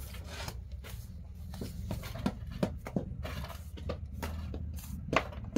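An irregular series of short knocks, about two or three a second, over a low steady hum.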